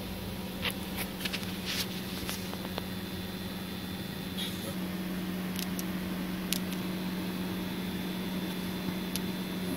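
A steady low electrical or mechanical hum, with a few short clicks and taps, mostly in the first two seconds.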